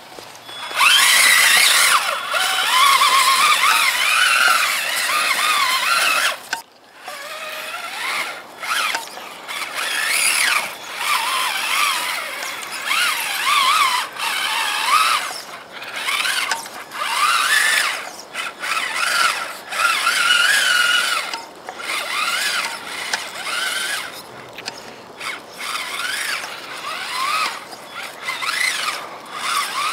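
Traxxas Summit RC truck's electric motor and geared drivetrain whining in spurts as it crawls, the pitch rising and falling with the throttle, with brief pauses between.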